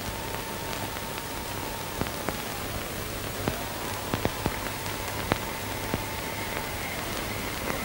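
Steady hiss and hum of an old optical film soundtrack, scattered with sharp crackles and clicks, under a faint long-held high tone.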